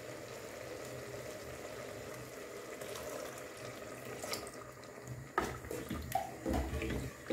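Cowpea curry simmering steadily in an open pressure cooker pot. About four seconds in, thick coconut milk is poured in from a plastic jug. Then a spoon stirs it, clicking and knocking against the pot.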